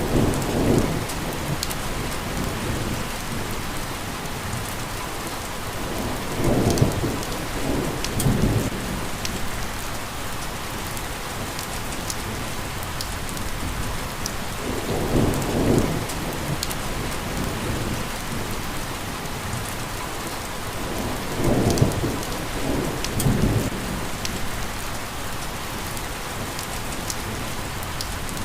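Steady rain falling with a constant hiss and fine drop ticks. A low rumble swells up and fades several times, often in pairs a second or two apart.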